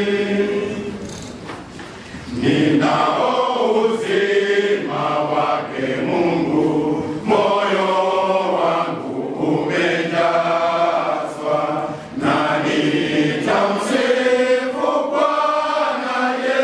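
Men's choir singing a Swahili hymn together, phrase by phrase, with a brief drop between lines about two seconds in and again near twelve seconds.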